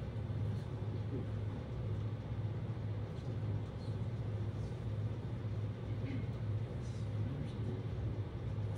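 Steady low room hum from machinery, with a few faint clicks.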